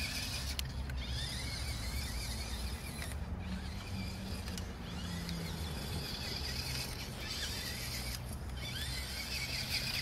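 Electric drive motor and gearbox of a toy RC rock crawler whining as it drives across grass, the whine rising in pitch in short spurts every second or so as the throttle is pushed, over a steady low rumble.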